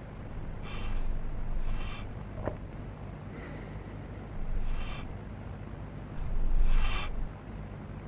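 A man breathing heavily, taking about five separate noisy breaths, the last one the loudest, over a steady low hum.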